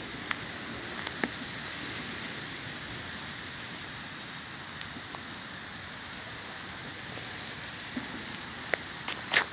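Hailstorm with rain: a steady hiss of falling hail and rain, with scattered sharp ticks of single hailstones striking. The loudest tick comes near the end.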